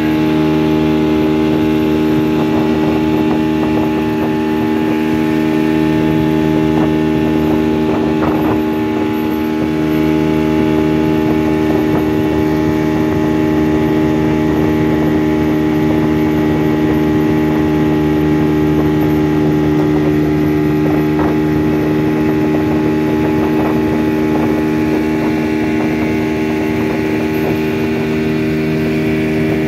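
Motorboat engine running steadily under way, a constant drone made of several steady tones.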